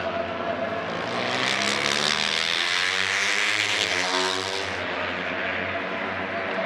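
A pack of Honda NSF250R single-cylinder four-stroke race bikes at high revs passing the trackside microphone. The sound swells about a second in as they come close, and the pitch falls as they go by, a little before the end.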